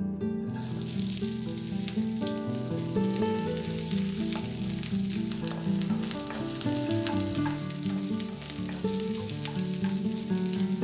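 Diced onion sizzling in hot oil in a nonstick wok, starting about half a second in, with a wooden spatula stirring and scraping through it. Soft plucked-string background music plays underneath.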